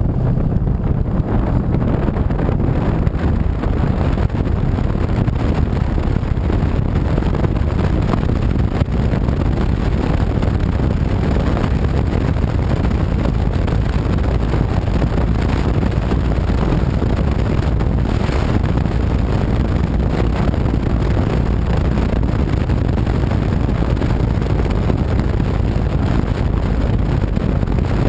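Steady wind buffeting the microphone of a camera on a moving motorcycle, with the bike's engine running underneath at a constant pace.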